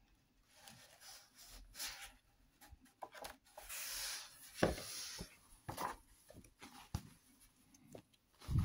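Pages of a large illustrated hardcover book on glossy paper being turned by hand: soft rustles and a paper swish. There is a dull thump about halfway through and a louder one at the end as the pages come down and are pressed flat.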